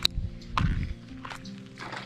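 Background music with steady held notes, a sharp click right at the start and a dull knock about half a second in.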